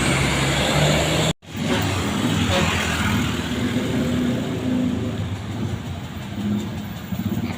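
Road traffic noise with a motor vehicle's engine running close by. The sound cuts out abruptly for a moment about one and a half seconds in, then the engine and traffic noise resume.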